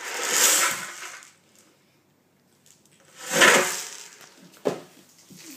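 A hand drum played with bare feet: two scraping, rushing swells about three seconds apart as the feet brush across the drum, then a single sharp tap near the end.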